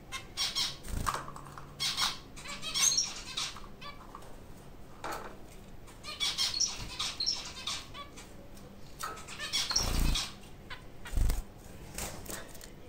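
White zebra finches in a wire cage: short, irregular calls and flurries of wing flapping as they move about. There are a few dull low thumps, about a second in and twice near the end.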